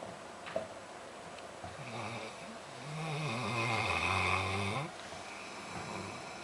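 A pet snoring: one long snore lasting about two seconds, its pitch rising sharply just before it cuts off, between softer snoring breaths.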